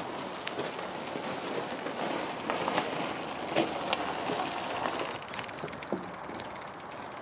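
Footsteps and motorcycle tyres crunching over frosty ground as a custom 1985 Kawasaki KX500 is pushed by hand with its engine off, with scattered sharp clicks and crunches that are loudest in the middle and fade near the end.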